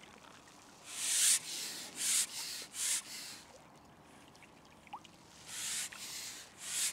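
Carbon fishing pole being shipped back hand over hand, each pull giving a short rasping swish as the pole slides: three quick strokes about a second apart, a pause, then two more near the end. The pole is being drawn in with a fish on the line.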